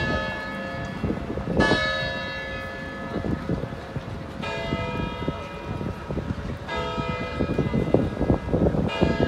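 Clock-tower bell striking slowly, a stroke about every two seconds, each stroke ringing on and fading before the next.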